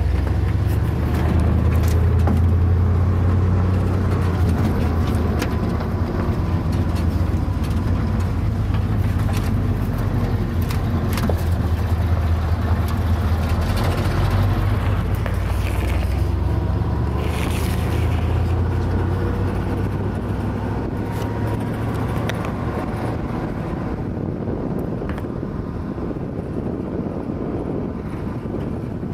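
Truck driving over a rough track: a steady low engine and road rumble with scattered knocks and rattles, easing a little in the second half.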